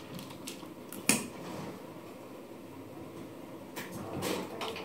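Handling noises of seasoning sachets and scissors at a kitchen counter: one sharp click about a second in, then a few soft rustles near the end.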